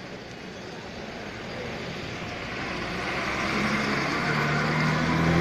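A motor vehicle approaches and grows steadily louder, its engine hum coming through clearly over the noise of its passing in the last couple of seconds.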